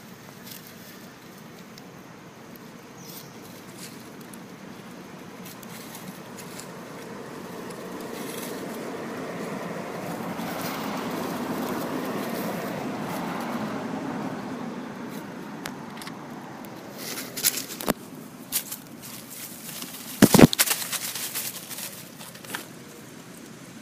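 A passing vehicle, its noise swelling and then fading over about ten seconds. Near the end come a few sharp crackles and knocks, the loudest about twenty seconds in.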